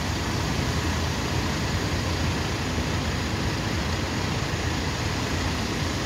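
Sea surf: big waves breaking and washing in and out on a sandy beach, a steady rush of noise with a heavy low rumble.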